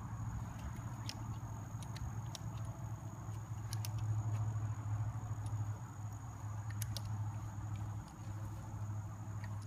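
A motor running steadily with a low hum, swelling a little around the middle, with a few faint clicks over it.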